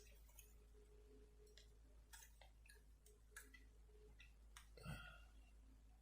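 Faint, scattered small clicks and taps of a diecast model car's wheels and axle being handled and pressed on, over near-silent room tone.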